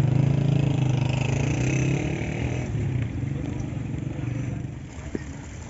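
A motor vehicle's engine running with a low, pulsing note, loudest in the first two seconds and then fading away.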